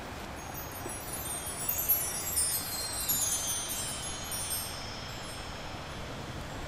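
Shimmering chimes: a cascade of many small high bell-like tones that spills downward in pitch over a few seconds, then fades, over a soft steady hiss.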